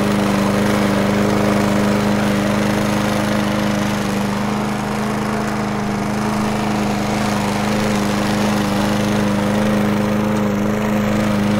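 Petrol lawn mower engine running at a steady pitch with no change in speed.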